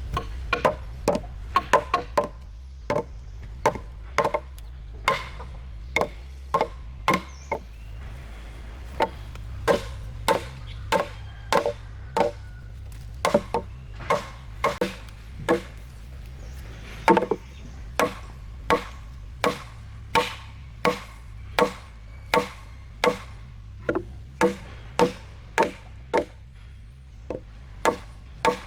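Repeated strikes of a hand tool chopping into a wooden beam, a steady rhythm of about one and a half knocks a second, each with a short ringing tone. A faint low hum runs underneath.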